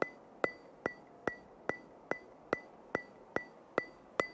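Ticking sound effect: sharp, evenly spaced clicks with a short ring, about two and a half a second.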